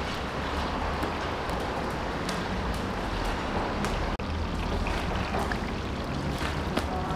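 Steady rushing noise of a busy cooking hall, with scattered light clicks and crackles.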